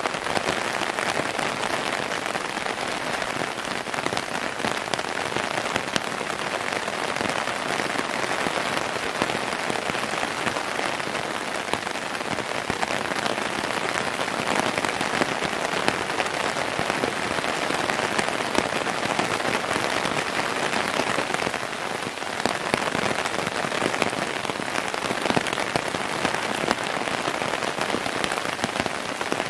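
Heavy downpour: rain falling steadily as a dense, even hiss of countless drops.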